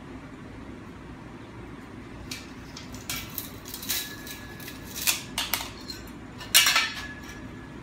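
Tape measure and metal speed square being handled on a concrete floor beside steel tubing: a string of clicks, taps and scrapes beginning about two seconds in, the loudest near the end with a brief metallic ring.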